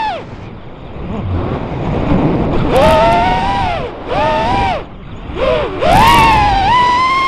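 Brushless motors and propellers of a 5-inch FPV freestyle quadcopter, heard from its onboard camera. For the first couple of seconds there is a rush of wind. Then, from about three seconds in, come several bursts of motor whine that rise and fall in pitch with the throttle, and the last burst is held longest.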